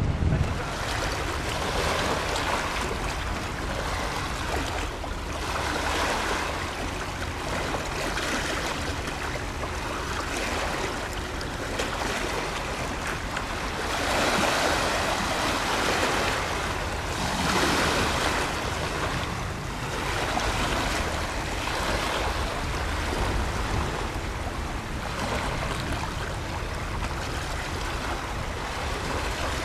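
Steady rushing of wind and choppy river water, swelling now and then, over a low rumble of wind on the microphone.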